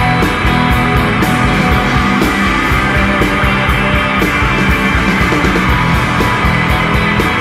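Shoegaze rock song playing: a dense wash of guitars over drums keeping a steady beat.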